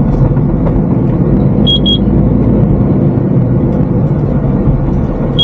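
Heavy truck's diesel engine droning steadily with the exhaust brake fully on in second gear, holding the lorry back on a slippery descent. Two short high beeps sound about two seconds in and again at the end.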